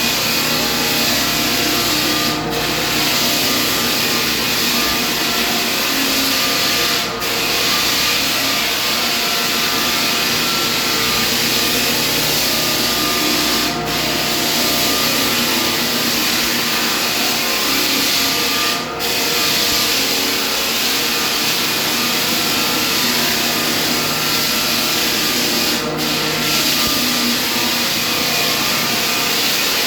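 Hardwood floor sanding machine running steadily on a wood floor, with a brief dip in the noise every few seconds.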